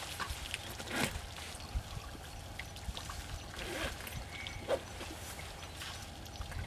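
African elephant bull drinking: water trickling and pouring as it empties trunkfuls into its mouth, with a few short splashes.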